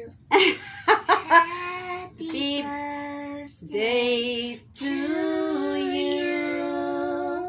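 A woman singing a birthday song in long held notes, the last held for about two and a half seconds near the end.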